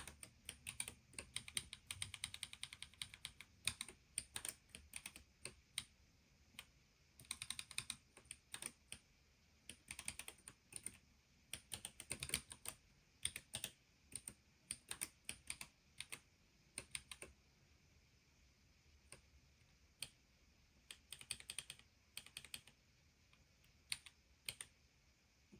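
Keystrokes on an Ergo Split keyboard: quick runs of key clicks with short pauses between them, as in editing text, growing sparser in the last few seconds.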